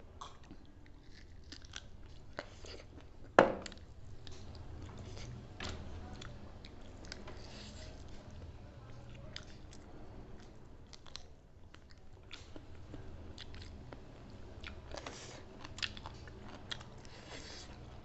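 Close-up eating sounds: chewing and biting food, with scattered small clicks and one sharp knock about three and a half seconds in.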